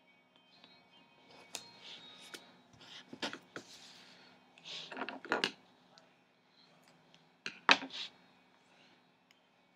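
Paper planner pages being handled and slid about on a wooden table: short rustles with a few light taps and knocks, the loudest knock about three quarters of the way through.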